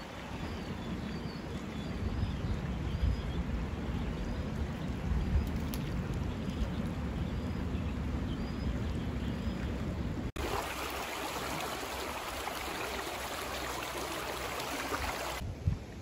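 Flowing creek water with a low rumble, and faint repeated high chirps through the first half. About two-thirds of the way through the sound changes abruptly to a brighter, hissier rush of water.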